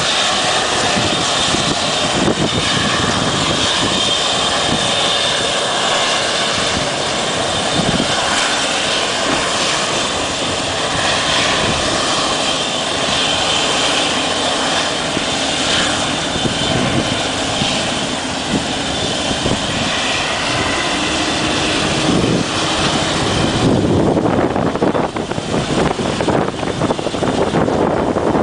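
Eurocopter EC120 Colibri helicopter running, its single turboshaft engine giving a steady high whine over the rotor noise. Near the end the whine fades and a lower rushing wind noise takes over.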